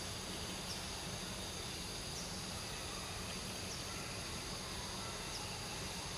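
Steady outdoor ambience of droning insects, with a faint short chirp about every second and a half.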